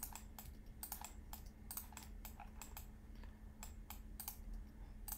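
Faint computer keyboard keystrokes and clicks, irregular, about three a second.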